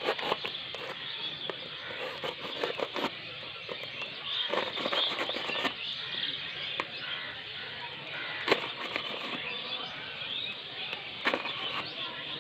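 Packaging crackling and rustling as it is cut open with a knife, with a few sharp clicks along the way.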